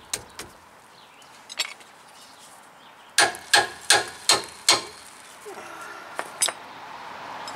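Hammer striking a rusted truck rear brake caliper: five sharp blows in quick succession about three seconds in, with a few lighter tool clicks before and after.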